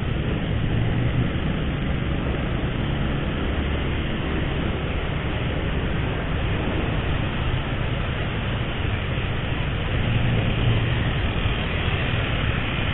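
Motorcycle riding through city traffic: a steady rush of wind and road noise over the low hum of the engine, a little louder about ten seconds in.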